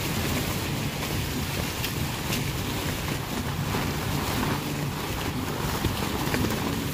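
Wind buffeting the microphone on a sailboat's foredeck, a steady low rumble, with water rushing along the hull.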